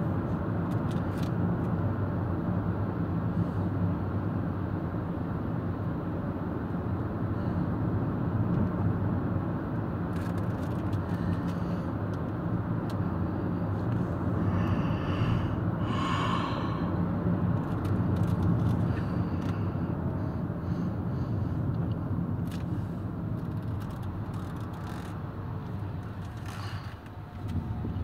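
Car cabin noise while driving through town: a steady engine hum and tyre rumble, heard from inside the car. There is a short, higher-pitched sound about halfway through.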